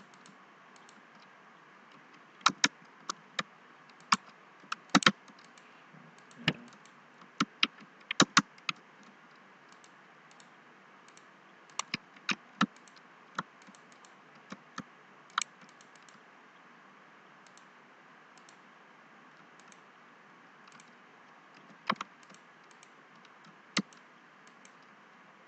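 Computer keyboard keys and mouse buttons clicking in short, irregular clusters with pauses between, as drawing commands are typed and objects picked.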